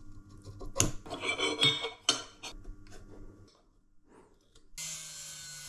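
Metal clinks and scraping as a steel vernier caliper is set against aluminium angle profiles and the pieces are handled on a steel worktable. About five seconds in, a steady electric power-tool whine starts abruptly.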